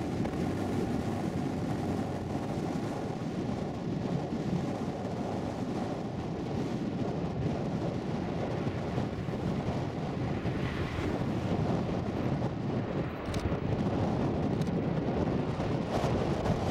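Boeing 767-200ER airliner on final approach to land, gear down, its jet engines making a steady rumble that grows a little louder in the second half as the plane comes closer.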